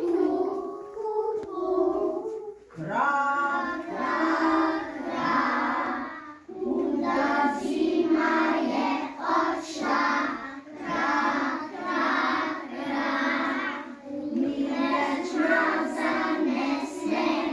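A group of young children singing a spring song together without words being spoken, in sung phrases a few seconds long with short breaks between them.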